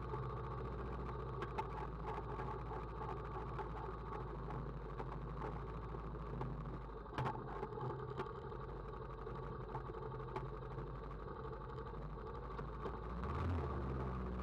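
ATV (four-wheeler) engine running steadily at low revs, rising in pitch near the end, with a few sharp knocks along the way.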